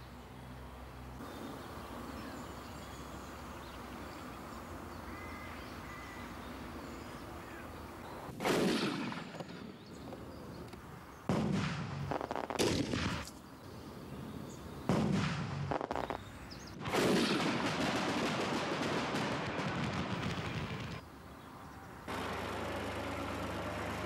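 Fireworks going off: after a steady hiss, a series of sudden loud blasts with ringing, crackling tails, the last one drawn out into several seconds of continuous crackle. Near the end a forklift's engine hum sets in.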